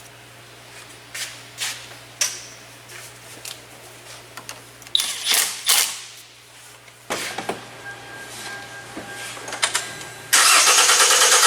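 Scattered metallic clicks and clatter of tools and connectors being handled, then about ten seconds in the starter motor suddenly begins cranking the Hyundai Elantra GT's engine with a steady, even pulsing. The cranking is an attempt to reproduce an intermittent no-start blamed on the crankshaft position sensor signal.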